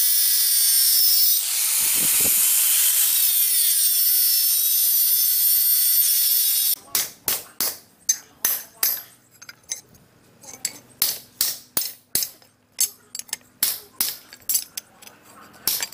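A power tool runs steadily on metal, its pitch dropping and recovering twice, then cuts off about two-thirds of the way in. It is followed by a series of sharp hand strokes on the axe head, about one or two a second.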